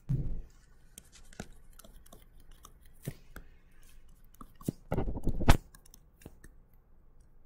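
Stylus tapping and scratching on a tablet screen while handwriting, a run of small irregular clicks. A louder dull knock comes about five seconds in.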